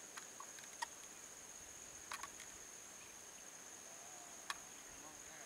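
Insects in a steady high-pitched drone, with a few short, sharp chirps. The loudest chirps come just under a second in and about four and a half seconds in, with a quick pair near two seconds.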